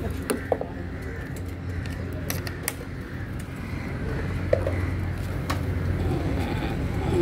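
Steady low machine hum, with a few light clicks and taps scattered through it.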